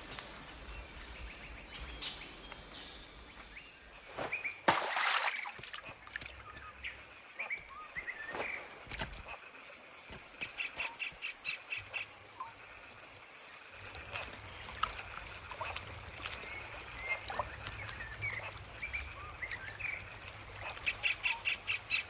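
Outdoor ambience of wild birds calling: scattered short chirps and whistles over a steady background, and twice a fast trill of about ten notes a second, once around the middle and again near the end. A brief sharp noise about five seconds in is the loudest sound.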